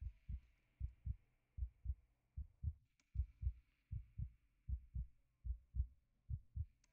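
A slow, steady heartbeat: low double thumps (lub-dub) about 75 to the minute, over a faint hiss.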